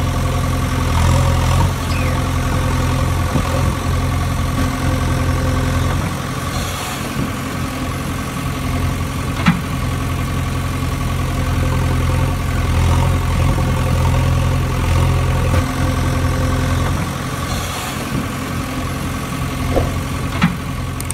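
Heavy diesel engine running steadily at a low idle-like pace, swelling slightly now and then, laid over a toy backhoe loader pulling a toy truck from a mud pit. Two single sharp clicks, about nine and twenty seconds in.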